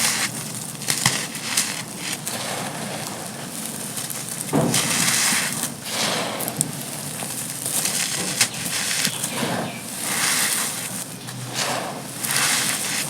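Dry, gritty sand-cement chunks crumbling and crunching, with a constant crackle and scattered sharp clicks that grow denser and louder in several waves.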